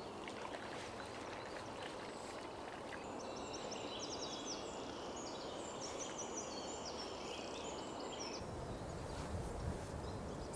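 Woodland ambience: a steady low background noise, with a small songbird singing a run of quick, repeated trilled phrases from about three seconds in until about eight seconds. The low rumble grows stronger near the end.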